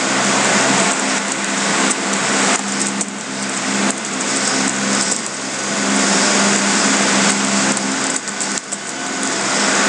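Loud, steady hiss with a low electrical hum from the recording's microphone and computer. Scattered light clicks of a computer keyboard come through as code is typed into the editor.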